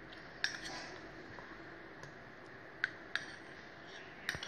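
A handful of light, sharp clinks, metal hand-mixer beaters knocking against a glass mixing bowl, spaced irregularly over a few seconds.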